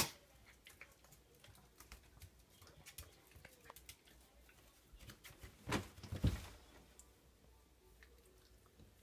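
Dog sneezing twice in quick succession about six seconds in, with faint small clicks and snuffles between sneezes. The sneezes are part of an allergic sneezing fit.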